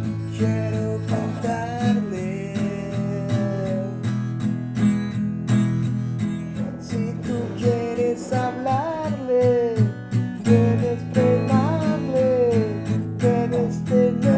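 Space rock music: sustained guitar chords over a steady beat, with a lead melody that bends and glides in pitch.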